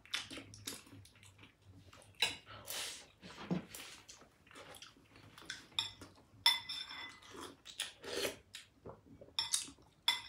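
Spoon and cutlery clinking against a plate or bowl during a meal: a string of short, irregular clinks, some ringing briefly.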